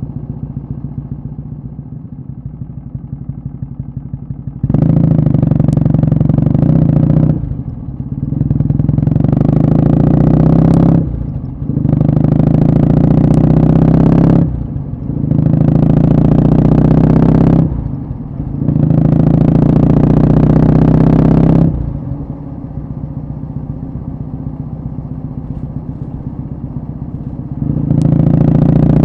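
Kawasaki W650 vertical-twin engine through a short Yamato Stainless Cabton muffler. It runs steadily at first, then pulls hard through the gears from about five seconds in, its pitch rising with each pull and dropping briefly at each of four shifts. It then eases off to a steady cruise and opens up again near the end.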